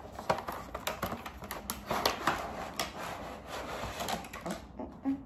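Irregular clicks and rustles of a packaging box being handled and opened. The sounds die down near the end.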